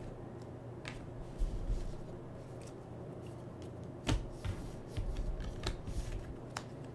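Trading cards and plastic card sleeves being handled: scattered light clicks, taps and rustles, the sharpest about four seconds in.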